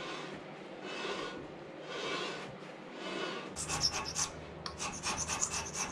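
Metal rasping over the scraped cast-iron slideway of a 676 milling machine part in back-and-forth strokes. The strokes are slow and soft at first, then quicker and sharper from about halfway in.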